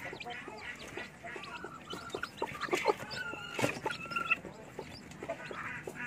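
Newly hatched chicks peeping in short, high, repeated chirps under a broody Bangkok hen, as she is handled. The hen gives a held call lasting about a second near the middle, with light rustling and knocks from hands on her feathers and the cardboard box.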